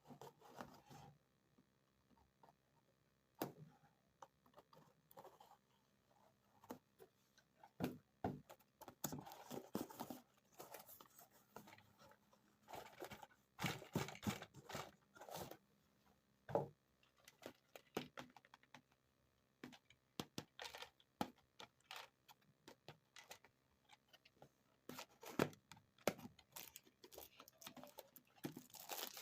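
Faint handling of plastic toy packaging and small plastic toy pieces: irregular crinkling, tearing and light clicks, busier in the middle and again near the end.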